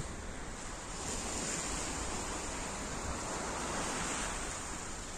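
Small waves breaking and washing onto a pebble beach: a steady surf with no distinct events.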